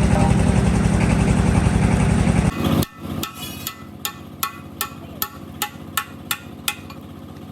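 A loud machine runs for about two and a half seconds and cuts off suddenly. It is followed by about ten evenly spaced hammer blows on metal, roughly two and a half a second, each ringing briefly.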